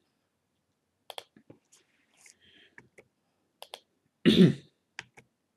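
Scattered soft computer mouse clicks, a few single and double clicks, as the annotation marks on the lesson slide are cleared. About four seconds in comes a louder brief throat-clearing sound from the speaker.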